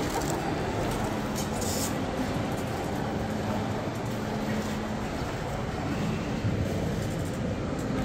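Steady low rumble with a faint low hum, as of a vehicle running.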